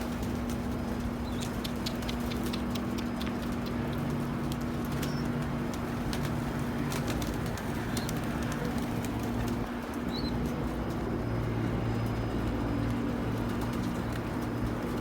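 Domestic pigeons cooing, with wing flaps and scattered small clicks as birds land and move about the loft, over a steady low hum.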